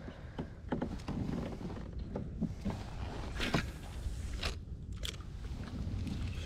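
Irregular light clicks and taps as a spinning rod and reel are picked up and handled in a plastic fishing kayak, over a low steady rumble.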